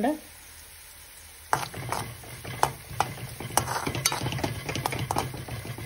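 Steel spoon stirring chopped onion and garlic frying in oil in a metal cheenachatti (kadai): irregular scraping and clinking against the pan over a low sizzle, starting about a second and a half in.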